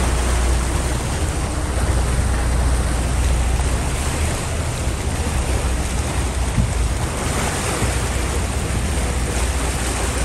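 Water rushing and splashing past a moving excursion boat, with wind buffeting the microphone. A steady low rumble underneath eases off for a few seconds midway, then returns.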